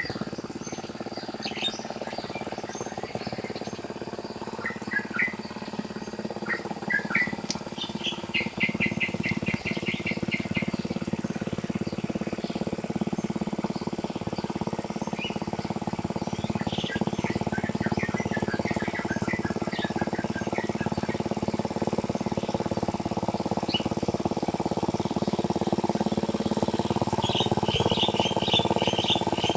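Small birds chirping and trilling in quick runs over the steady running of a small engine, most likely a tractor plowing the rice paddy. The engine grows louder toward the end.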